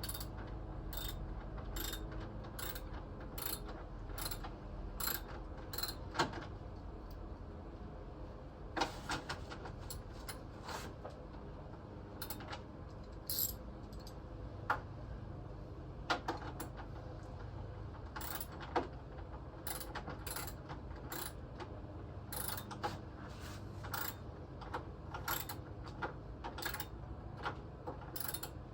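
Hand tools clicking and tapping on metal, about two clicks a second at first, then scattered and irregular.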